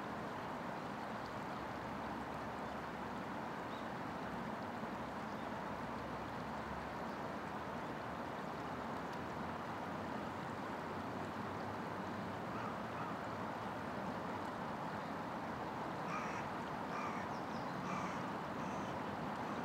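Steady rush of flowing river water, with a bird calling four or five times in short calls near the end.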